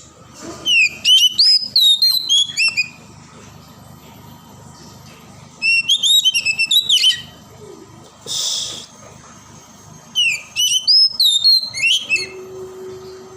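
Oriental magpie-robin singing: three bursts of rapid, sweeping whistled phrases, each a couple of seconds long, with a short hiss between the second and third.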